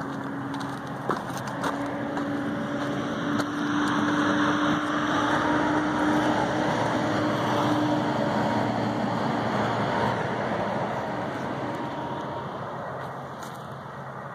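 A vehicle passing by: a steady engine hum with a rushing noise that swells over several seconds and then fades away.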